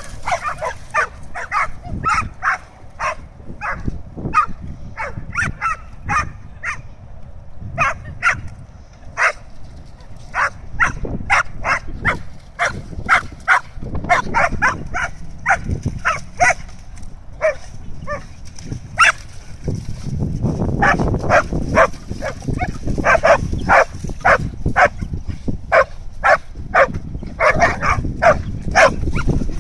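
Australian Shepherds barking excitedly in play, short sharp barks repeated about two to three a second with brief lulls, as they leap at a dangling cable-ski handle.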